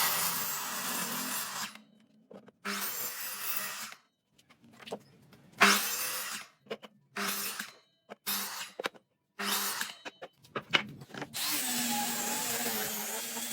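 Handheld power tool working wood, heard in several short stretches with abrupt breaks, then running steadily from about eleven seconds in.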